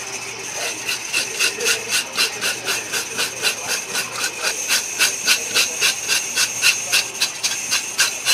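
Rapid, even strokes of a hand tool, about three and a half a second, over a steady hiss.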